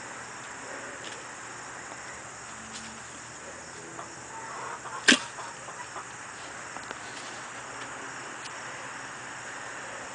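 One sharp click about halfway through, with a few faint ticks around it, over a steady high hiss. These are most likely handling noises from the fire-making gear.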